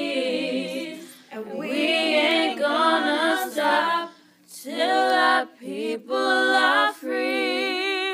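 A cappella choir of voices singing unaccompanied, long held notes with wavering vibrato in several phrases, stopping suddenly near the end.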